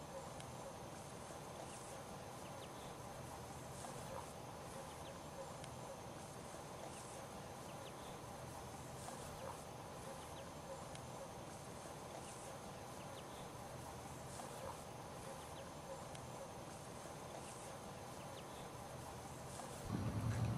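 Faint, steady outdoor background with a constant low drone and a few light ticks. Near the end it gives way to a louder, low rumbling sound.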